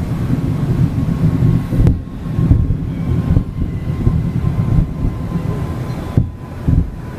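Fireworks bursting: a continuous deep rumble of booms, with two sharp cracks, about two seconds in and about six seconds in.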